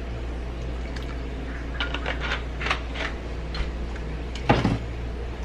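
Steady low hum of a large pot at a rolling boil on a gas stove, with a few light clicks and a sharper knock about four and a half seconds in.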